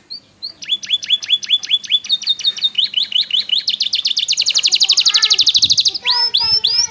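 Domestic canary singing hard: a run of repeated rising whistled notes that speeds up into a very fast, high trill, then breaks into a few louder rising notes near the end.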